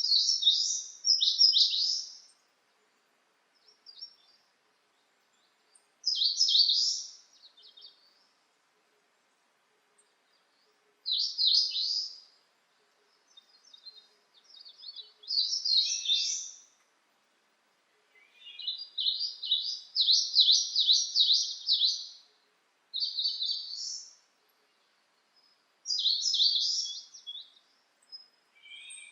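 A songbird singing a series of high, quick trilling phrases, each one to three seconds long and a few seconds apart, with the longest, fastest trill about two-thirds of the way through.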